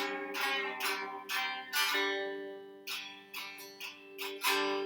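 Acoustic guitar strummed, each stroke of the chord ringing on until the next.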